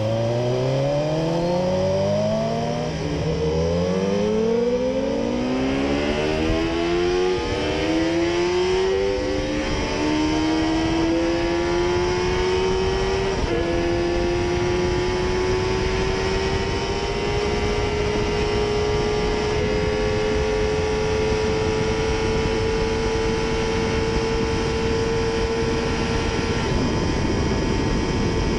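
Sport-bike engine at full throttle, accelerating hard through the gears: its pitch climbs and drops back at each upshift, then holds a high, steady note near top speed.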